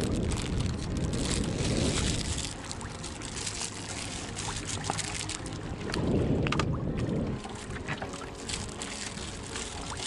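Wind gusting on the microphone over water lapping against a small aluminium boat's hull, with scattered light knocks; the gusts are strongest near the start and again about six seconds in.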